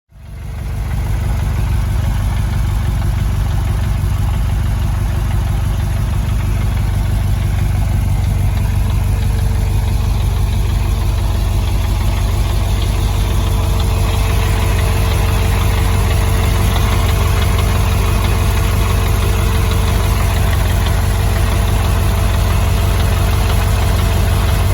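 Ferrari 308 GT4's V8 engine idling steadily with a misfire on cylinder number 4, whose exhaust stays cold while the others run hot.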